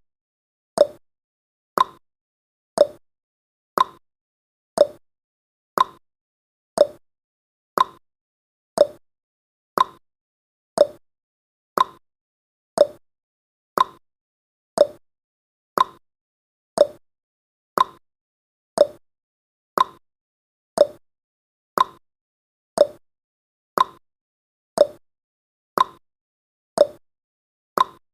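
Countdown timer's clock-tick sound effect: one short, sharp tick every second, steady and evenly spaced.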